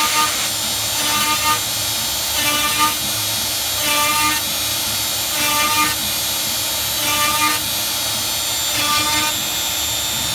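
Shapeoko 3 CNC router cutting wood: the router spindle runs with a steady high whine, and a louder pitched tone from the machine swells and fades about every second and a half as it repeats its cutting moves.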